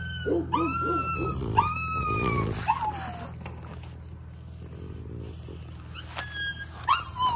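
A dog whining in high-pitched, rising-and-falling whimpers, several in the first three seconds, the last sliding down in pitch, with another near the end, over a steady low hum.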